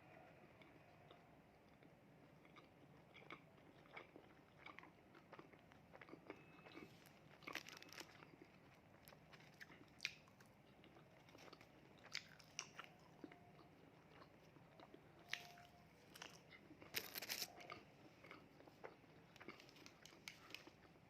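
Close, faint eating sounds: a person biting and chewing fast food (cheeseburger, fried chicken and fries), with scattered crisp crunches and small wet clicks, louder clusters of crunching about a third of the way in and again past the middle.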